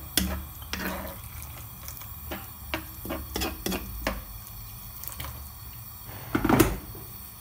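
A spoon stirring chunks of potato and vegetables in broth in a pan: liquid sloshing, with short clicks and scrapes of the spoon against the pan and one louder knock about six and a half seconds in.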